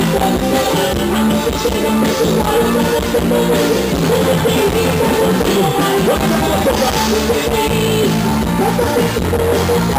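Forró band playing live: an instrumental passage with guitar over a drum kit and steady beat, no singing.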